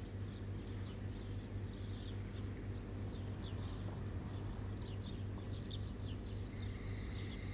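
Outdoor ambience of many short, high bird chirps over a steady low hum. A steady high tone joins in near the end.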